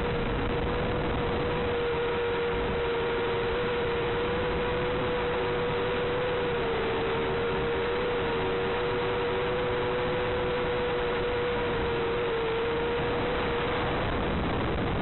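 Steady hiss with a constant hum, the empty audio channel of an analog FPV video link as recorded by the goggle DVR. The hum holds almost the same pitch throughout and does not follow the quadcopter's throttle.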